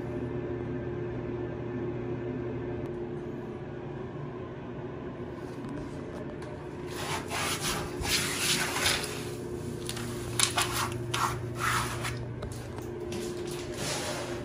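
A hand rubbing and pressing down glass-bead vinyl wallcovering on a wall: a run of short, scratchy strokes over the beaded surface starting about halfway in and lasting about five seconds, over a steady low hum.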